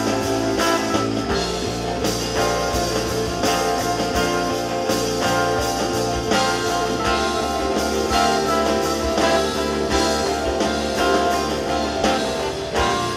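Live rock band playing an instrumental passage, with keyboards, guitars and drums. The music drops in level near the end.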